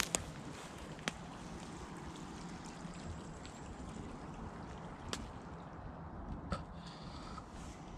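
Small woodland stream trickling steadily, with a few sharp clicks and knocks of handling noise scattered through it.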